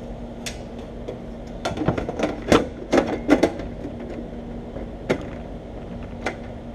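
A desktop computer case being closed up: a series of knocks and clicks as the case is handled and fitted back together, bunched in the first half and then a couple of single clicks.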